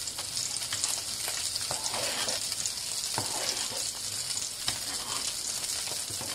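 A pot of dal with wheat-dough dumplings simmering with a steady hiss while a metal ladle stirs it, with a few sharp clicks of the ladle against the pot.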